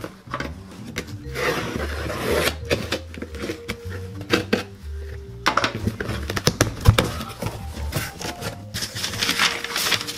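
A cardboard shipping box being handled and opened, with packing paper pulled back: many short knocks, scrapes and rustles. Background music with a steady bass line plays underneath.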